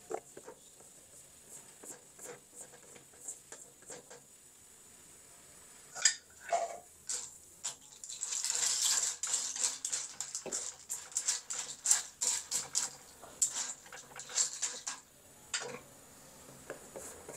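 Cooking utensil clattering and scraping against a pan while the food is stirred, with sparse knocks at first and then a louder stretch of hiss and rapid clatter through the middle and second half.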